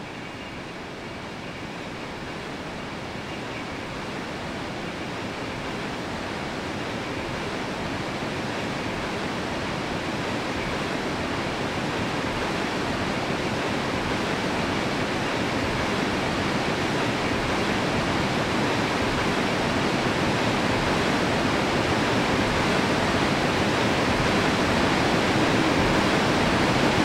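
Rushing white water of the Barnafoss waterfall, a dense, even rush of noise that swells steadily louder.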